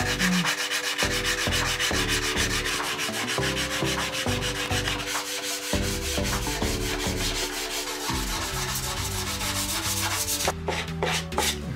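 A sanding sponge is rubbed quickly back and forth by hand along the edge of a plywood shelf, sanding iron-on edge banding flush with the plywood. The strokes come in a rapid, even rhythm and stop shortly before the end.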